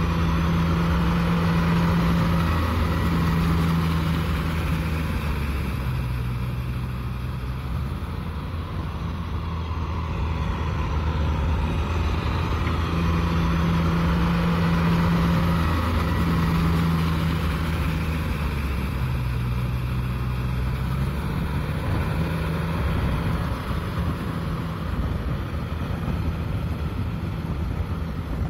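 Kubota tractor's diesel engine running steadily under load as it works through deep paddy mud, its pitch dipping lower twice for a couple of seconds.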